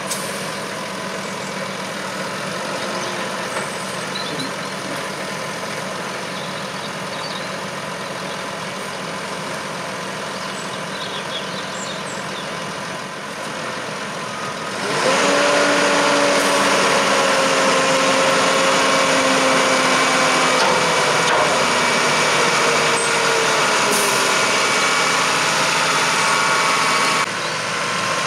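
New Holland T7 tractor engine running while a Fliegl Gigant push-off trailer unloads chopped maize. About halfway through it becomes louder, with a steady whine that slowly falls in pitch.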